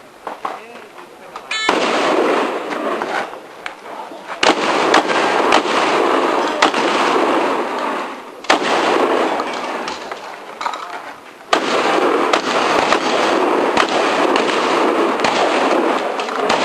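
Shotgun shots fired one after another during a practical shooting stage: sharp reports at irregular gaps of about half a second to two seconds. Between them runs a loud, dense rushing noise that starts and stops abruptly.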